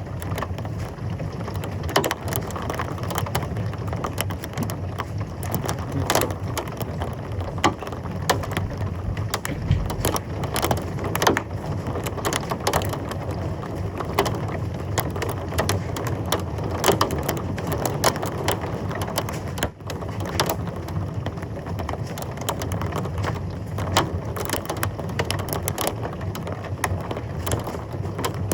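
Heavy thunderstorm rain pouring steadily, with many sharp ticks of hard impacts on a surface throughout and a low rumble underneath.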